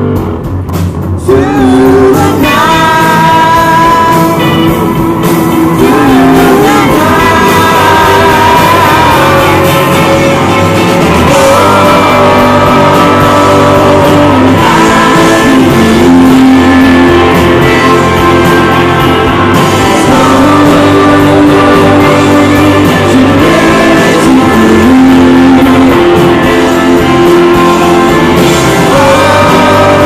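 Live rock band playing in a large hall: a man sings held notes over electric guitar.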